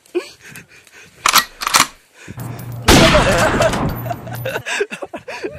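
Two sharp knocks about half a second apart, then a loud burst of rough, rumbling noise lasting about two seconds, with a brief voice in it: a mountain bike jolting down a rough trail, with wind buffeting the camera microphone.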